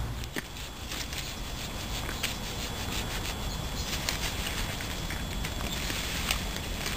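Brush and branches rustling and crackling as they are handled and pulled, with scattered small twig snaps.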